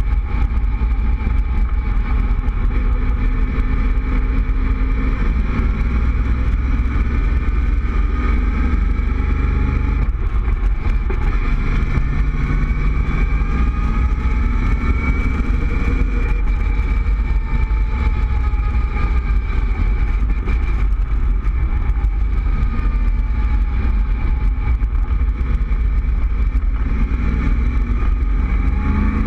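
Cobra roadster driving along an open road with its top down: the engine running at a steady cruise, its pitch rising and falling gently as the speed changes, under heavy wind rush on the microphone.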